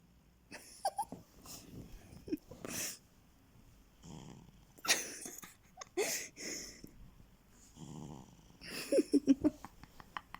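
A cat snoring: a series of wheezy, snorting breaths a second or so apart, with a quick rattling flutter near the end.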